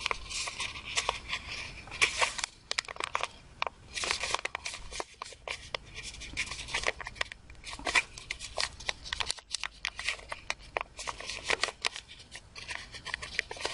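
A sheet of folded A4 paper rustling and crinkling in the hands as a box lid's corner is creased and tucked in with an inside-reverse fold: a run of irregular crackles and small clicks.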